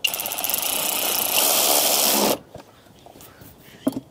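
Cordless electric ratchet motor running for about two seconds as it tightens a worm-gear hose clamp on the air intake duct, then stopping abruptly; a short click follows near the end.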